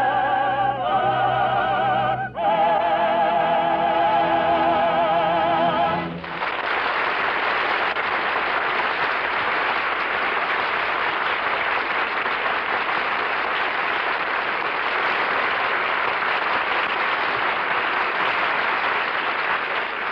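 Operatic singing with orchestra closes on a held high note with wide vibrato, which cuts off about six seconds in. A studio audience then applauds steadily.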